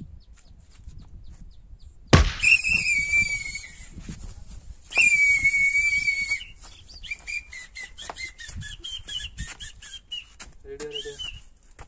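A sharp smack about two seconds in, followed by two long, steady, high-pitched whistles, then a run of short warbling whistled notes.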